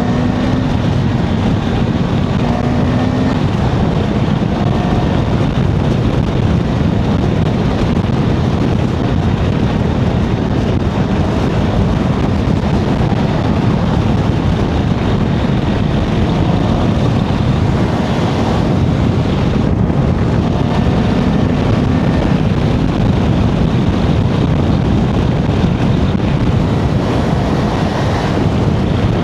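Motorcycle riding at highway speed: steady wind rush over the rider's camera microphone, with a faint engine hum coming through now and then.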